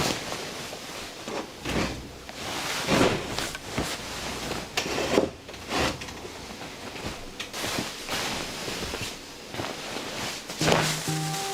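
Irregular knocks, clatter and rustling over a steady noisy background, like household things being handled. Music with held notes comes in near the end.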